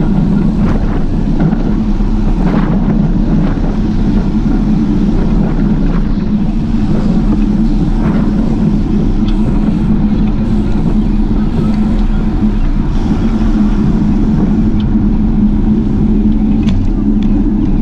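Loud, steady low rumble of wind buffeting a moving camera's microphone on a group bicycle ride, mixed with rolling road noise.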